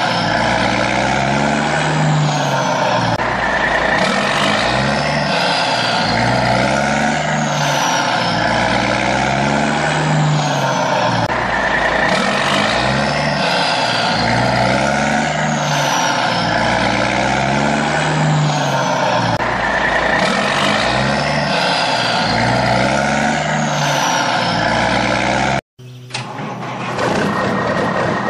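A looped truck engine sound effect: the same roughly two-second phrase of rising and falling engine notes with a high falling whistle repeats over and over. Near the end it cuts off abruptly and a different, steadier engine sound with a high held tone takes over.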